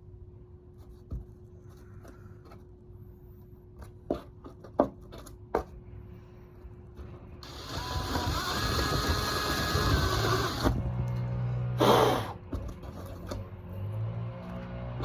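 A few light clicks and taps, then a small handheld power tool whirs for about three seconds, its pitch stepping up as it runs. The tool is trimming back the wood stringer around the leash plug hole.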